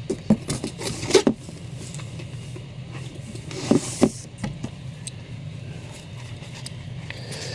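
Stacks of comic books being handled and counted by hand: a series of short papery slaps and rustles in the first second and a half and again around four seconds in, over a steady low hum.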